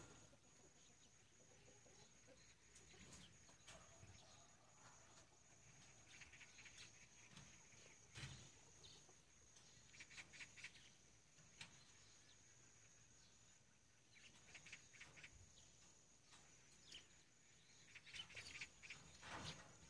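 Faint countryside ambience: scattered short bird chirps over a steady high hiss, clustering around the middle and near the end.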